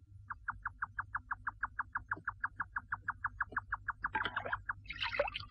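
Rapid, even chirping, about six short chirps a second, stopping near the end, with a brief rustle of noise just before it stops.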